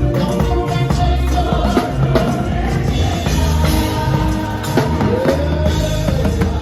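Live gospel band music with a singing voice over a full drum kit, bass and keyboards.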